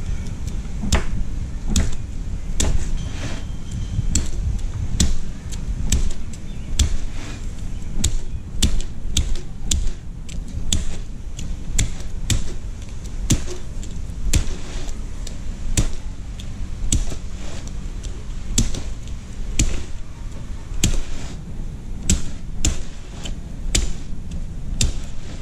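Hatchet chopping through an alligator gar's hard, armored scales along its back: repeated sharp chops, one to two a second, irregularly spaced, each with a dull thud into the board beneath.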